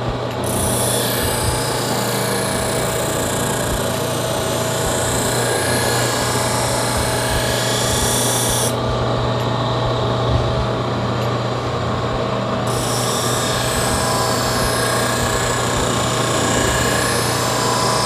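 Bench grinder motor running steadily while a pocket knife blade is held against the spinning abrasive wheel, giving a high grinding hiss as the edge is finished after a chip was ground out. The grinding stops about nine seconds in as the blade is lifted off, then starts again about four seconds later.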